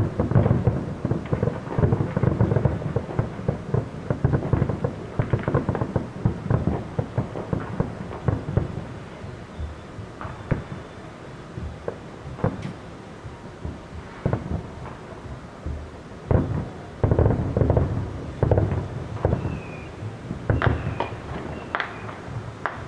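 Fireworks shells exploding: a dense run of bangs and crackles, each followed by a rumbling echo, thins out to scattered bangs about halfway through, then another flurry of loud bangs comes near the end.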